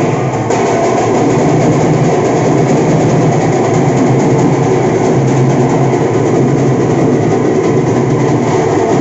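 A troupe of dhol drums played together in a fast, dense, unbroken beat.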